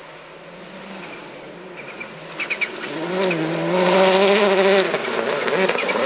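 Rally car engine at high revs, growing steadily louder as the car approaches at speed. There are a few sharp pops about two and a half seconds in, it is loudest around four seconds in, and the engine note dips and climbs as it changes gear.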